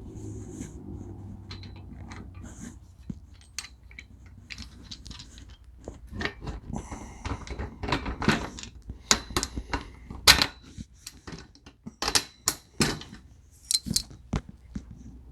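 Small metal assembly hardware being handled, clinking and clattering. Sparse taps at first, then from about six seconds a rapid run of sharp clicks and knocks, loudest a little past the middle.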